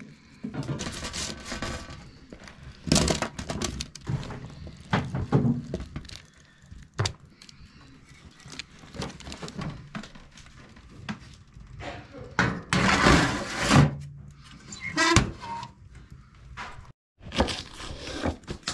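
Kitchen work: an irregular run of knocks and thuds, with a few short bursts of rushing noise.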